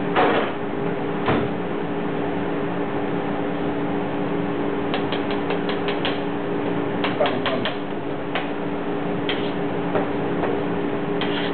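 Light clicks and taps of kitchen utensils, several in quick runs about halfway through, over a steady low hum.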